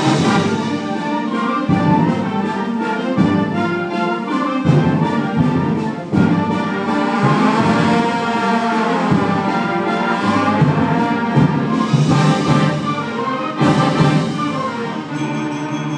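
Student concert band playing at full ensemble: clarinets, flutes and saxophones with brass, over regular percussion strokes.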